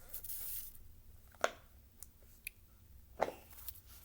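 Small objects being handled by hand: a short rustle at the start, then three sharp clicks about a second apart.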